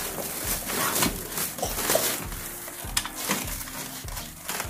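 Cardboard box flaps and plastic wrapping being pulled and handled while a power tool is unpacked: irregular rustling, crinkling and scraping with a few sharp crackles.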